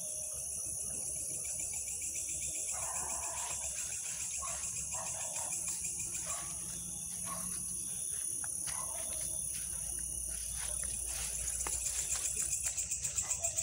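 Crickets and other insects trilling steadily at a high pitch, with a faster pulsing chirp coming in near the end.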